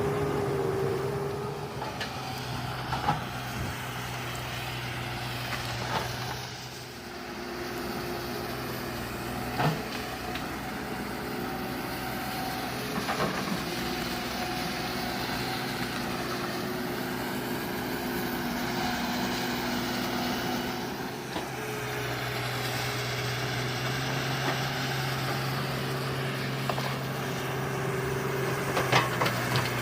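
Komatsu hydraulic excavator's diesel engine running steadily as it works, its note stepping up and down a few times with the load, with a few short sharp knocks and clanks now and then.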